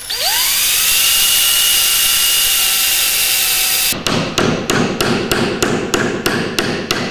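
Cordless drill spinning up with a quickly rising whine and running steadily for about four seconds as it drills into the wood. Then a claw hammer taps a small nail into the plywood, about four quick strikes a second.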